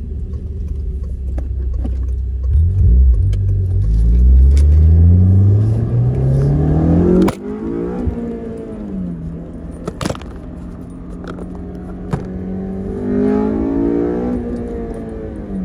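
Car engine accelerating: its pitch climbs for several seconds, then drops sharply about seven seconds in, like a gear change, and settles to a steady run. It rises briefly again near the end. A sharp click comes with the drop, and another about ten seconds in.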